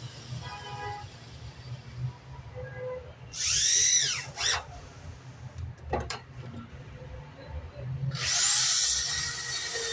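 Power drill run in two bursts. The first, a short one about three seconds in, has a pitch that rises and falls as it spins up and down. The second, a longer steadier run, starts about eight seconds in, and there is a sharp click in between.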